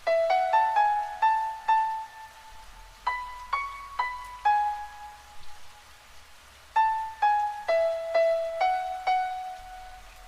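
Slow piano music: single high notes struck one after another in short phrases, with pauses of a second or two between them.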